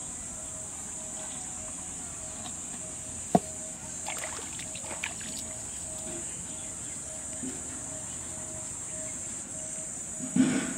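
Steady high-pitched insect drone with a regular pulsing call beneath it. About a third of the way in there is one sharp knock, followed over the next two seconds by small splashes and dribbling water as a stone-weighted mesh net is set in shallow pond water. A brief rustle or bump comes near the end.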